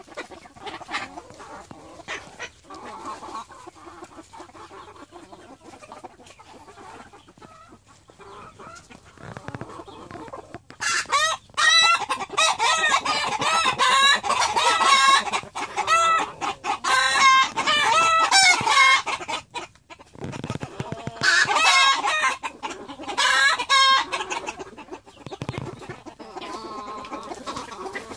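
A flock of white Silkie chickens clucking softly, then crowing loudly and repeatedly from about eleven seconds in for around eight seconds. After a short lull there is another few seconds of loud crowing.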